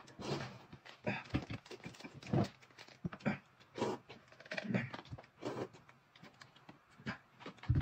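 Close-up eating sounds of noodles being slurped and chewed, in short irregular bursts.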